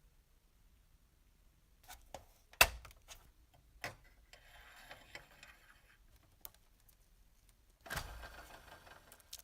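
Small parts of a metal toy bus being handled and fitted together: scattered sharp clicks and taps, the loudest a little over two and a half seconds in, with faint scraping in the middle and a knock with rustling near the end.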